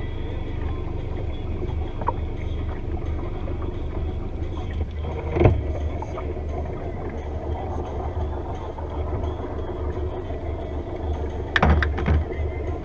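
Steady low rumble aboard a small center-console fishing boat, with a sharp knock about five seconds in and a quick cluster of knocks near the end.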